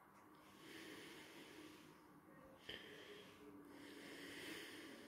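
Near silence: faint breathing close to the microphone, two slow breaths, with a light tap about two and a half seconds in.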